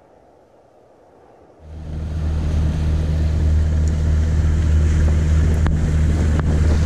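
Faint low noise, then about a second and a half in, a sailboat's auxiliary engine running steadily under way, a loud low hum with the rush of wind and water over it.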